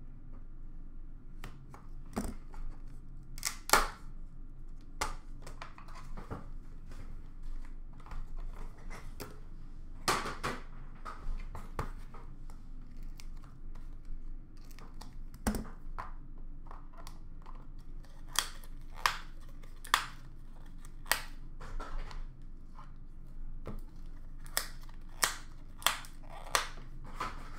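Hands handling and opening trading card box packaging: cardboard and plastic rustling, broken by sharp clicks and snaps that come about once a second late on.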